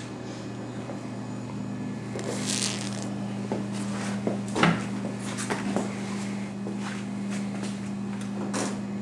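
A steady low hum with scattered light clicks and knocks and a brief rustle, the loudest knock about halfway through.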